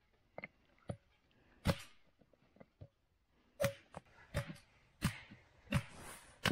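A run of sharp knocks at an irregular pace, roughly one every 0.6 to 0.9 seconds, with fainter clicks in between.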